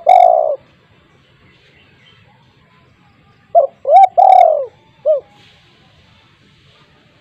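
Spotted dove cooing: the tail of one phrase right at the start, then, about three and a half seconds in, a full phrase of two short notes, a long falling coo and a last short note.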